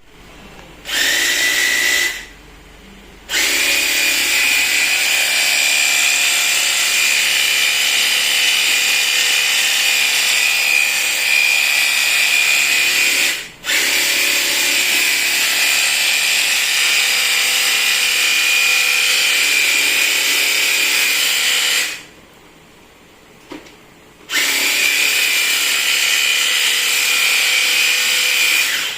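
Makita DUH601 18V cordless hedge trimmer running with a steady high whine, switched off and on several times: it stops briefly about two seconds in, dips for a moment near the middle, and stops for about two seconds near the end.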